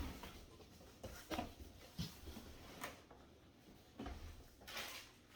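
Cardboard box and packaging being handled: scattered light knocks and a few brief rustles, the longest rustle near the end.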